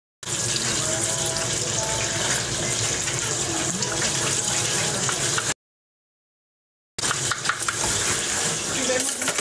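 Water running steadily from a tap into a sink, with faint voices underneath. The sound drops out to dead silence for about a second and a half in the middle, and a few sharp clicks come near the end.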